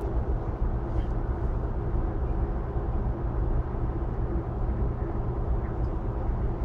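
Steady low hum and rumble of the Stena Scandinavica ferry's machinery, heard on its open deck.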